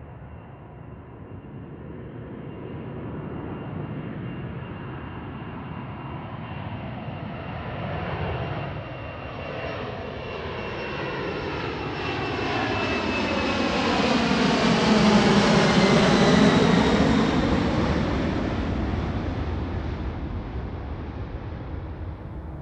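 Boeing 747 four-engine jet airliner taking off and passing close overhead: the engine noise builds steadily to its loudest about two-thirds of the way through, then fades. A high turbine whine runs through it and drops in pitch as the plane goes by.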